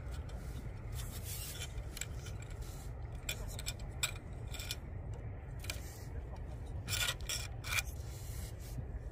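Handling sounds of a fishing rod being put together section by section: scattered rubs, scrapes and light clicks, with a couple of longer rubs about seven and eight seconds in. A steady low rumble runs underneath.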